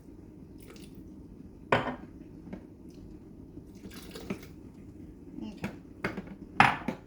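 Kitchen containers and utensils clinking and knocking while vinegar and water are added to a blender jar, with a short pour of liquid about four seconds in. The loudest knocks come about two seconds in and near the end.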